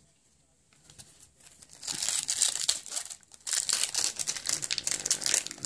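Trading card pack wrapper being torn open and crinkled by hand. It is quiet at first, then dense crackling starts about two seconds in, with a short break midway.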